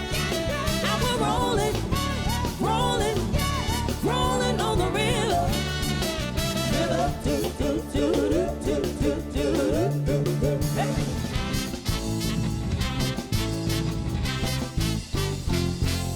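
Soul band playing a Motown-style number, a bending sung or lead line over bass and drums; the lead line drops away about two-thirds of the way through while the band plays on.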